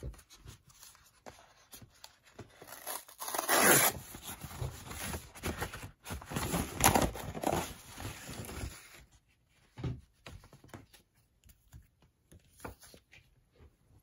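A kraft-paper mailer envelope being torn open along its tear strip, with crinkling paper. The tearing is loudest about four seconds in and again about seven seconds in. After that come quieter, scattered paper rustles as the book inside is taken out.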